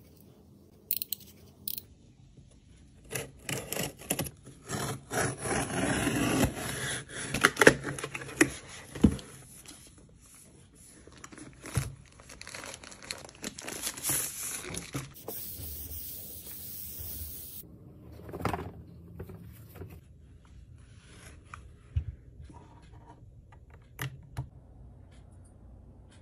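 Unboxing handling sounds: a box cutter scraping and slicing packing tape on a cardboard box, with tearing and crinkling of the packaging. Around the middle comes a long hiss as plastic wrap slides off the rolled desk mat, and later a few separate knocks as things are set down on the desk.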